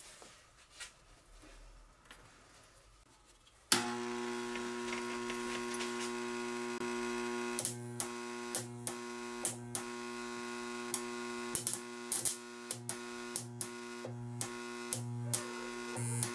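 Homemade transformer spot welder switching on about four seconds in with a steady electrical hum. From about halfway, a run of short sharp snaps, roughly one or two a second, each with a brief surge in the buzz: the copper electrodes making weld pulses into a nickel strip on an 18650 lithium cell.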